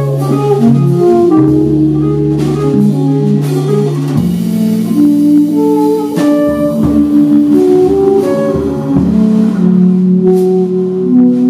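Jazz quartet playing live: saxophone, double bass, electric keyboard and drum kit, with long held low notes under a moving melodic line and light drumming.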